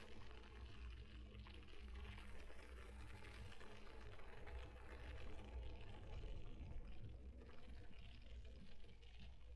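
Electric mountain bike on the move: a steady rush of tyre and wind noise with a low rumble, picked up by a camera strapped to the bike's frame.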